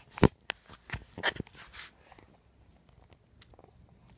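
A few sharp knocks and rustles in the first second and a half, the loudest about a quarter-second in, then quieter rustling, over a steady high chirring of insects.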